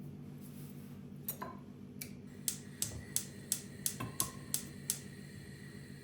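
A run of about ten sharp taps or clicks, roughly three a second, starting a second or so in and stopping near the end, over a steady low hum.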